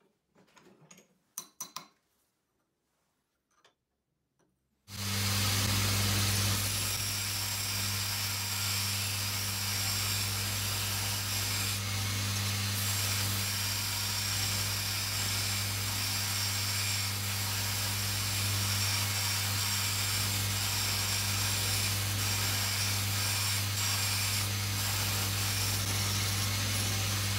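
A few light clicks and rustles of metal filings being brushed off a vise, then about five seconds in a vertical belt sander starts up and runs with a steady motor hum while a flat steel bar is ground against the abrasive belt, a constant grinding hiss over the hum. It starts to run down right at the end.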